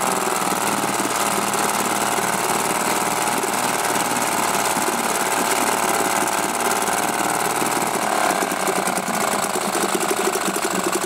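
British Seagull single-cylinder two-stroke outboard motor running in a test tank of water, its propeller churning the water. The revs rise briefly about eight seconds in, then drop, and the engine runs slower and more unevenly near the end.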